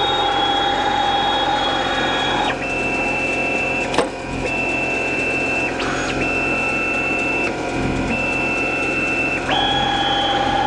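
DIY CNC router's stepper motors driving the axes: a steady whine that jumps between fixed pitches every second or two as each move changes speed, with a sharp click about four seconds in.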